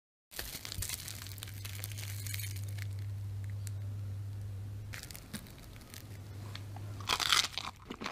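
Fried breadcrumb-coated potato cheese ball being pulled apart by hand, its crisp crust crackling and crunching, with a louder crunch near the end. A low steady hum lies under it for most of the time.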